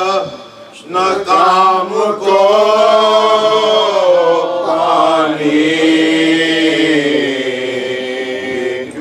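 An unaccompanied voice chanting an Urdu mourning lament (nauha) in long, slowly bending held notes, with a short break about half a second in.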